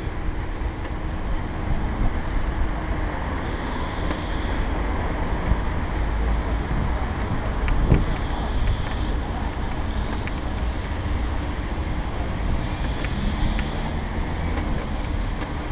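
Wind buffeting the GoPro microphone over a steady low rumble of wheels rolling on the bridge's asphalt, with a single bump about halfway through. A faint high-pitched tone comes and goes about every four to five seconds.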